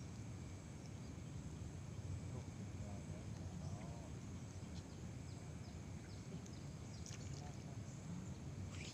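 Outdoor pond-side ambience: a steady low rumble under faint, scattered high chirps of small birds. A distant voice is heard faintly about three seconds in.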